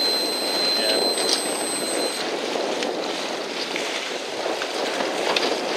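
Choppy sea water splashing and sloshing with wind, heard from a small boat on the water. A steady high-pitched electronic tone sounds over it and cuts off about two seconds in.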